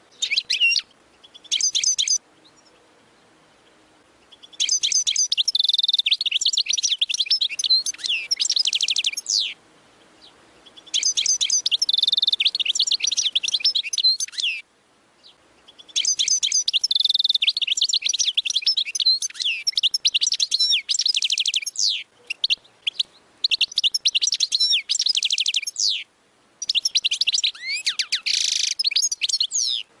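European goldfinch singing: two brief bursts at the start, then several long runs of fast twittering and trills, each a few seconds long, separated by short pauses.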